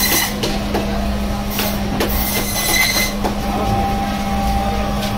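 Fish-cutting band saw running with a steady hum while its blade cuts crosswise through a large pangas fish, with several short hissing bursts as the blade passes through the body.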